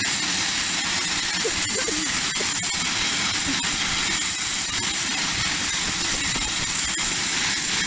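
Loud jet engines of a Cessna 560 Citation business jet running steadily: a constant rushing noise with a high turbine whine on top.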